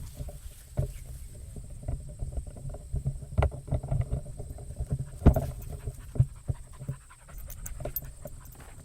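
A dog panting close to the microphone, with scattered short knocks and thumps, the loudest about five seconds in, over a low wind rumble on the microphone.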